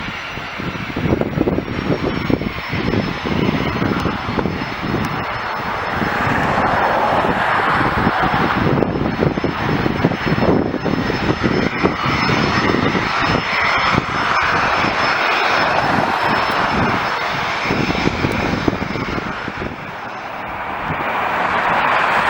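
Jet airliner's engines running as it passes, a loud rushing noise that swells and fades, with a faint high whine slowly falling in pitch.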